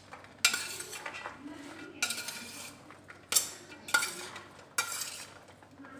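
Metal spoon scraping and clinking against a stainless-steel bowl as sprouted black chickpeas and chopped vegetables are stirred and tossed together. There are five separate sharp scrapes at uneven spacing, each trailing off.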